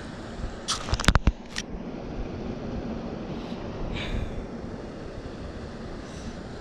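Steady outdoor wind noise on the microphone, with a quick run of about five sharp clicks or knocks about a second in and a fainter knock near four seconds.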